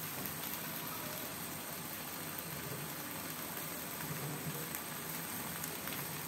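Genjer and chili stir-fry sizzling steadily in a wok, with a few faint crackles.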